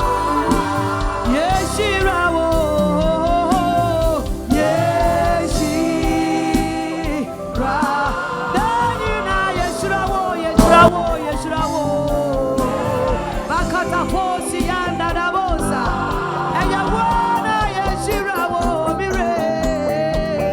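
A gospel worship song: singing over instrumental accompaniment, with held, wavering sung notes.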